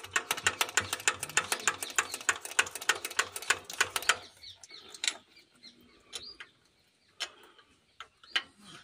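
Ratchet wrench clicking rapidly, about eight clicks a second, for about four seconds, then a few scattered clicks: tightening the bleed screw on the tractor's diesel fuel filter once the air has been bled out.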